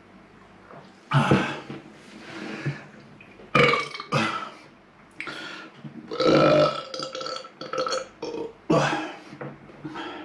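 A man burping repeatedly, a series of loud belches one after another, just after gulping down a drink.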